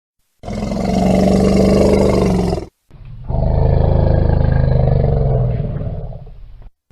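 Elephant calling: two long, low calls, the first about two seconds long and the second about three and a half seconds, tailing off at its end.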